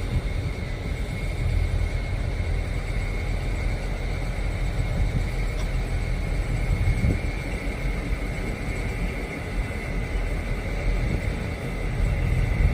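Diesel switching locomotive running with a steady low rumble, with a thin steady high whine over it.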